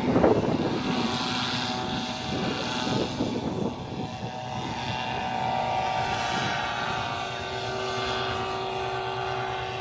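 Air Conquest Nitro 200 paramotor, a two-stroke engine driving a propeller, flying past. It is loudest in the first second or so, then settles into a steady drone as it moves away.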